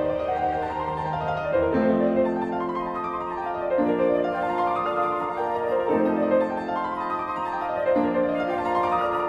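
Background music: calm classical-style piano, its notes rising and falling over low notes that change about every two seconds.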